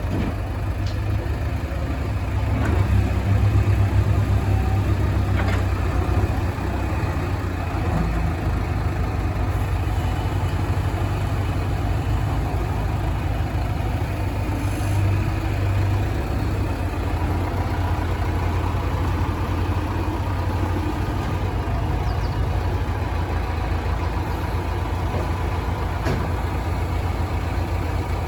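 Diesel engine of a JCB 3DX backhoe loader running steadily, getting louder for a few seconds near the start.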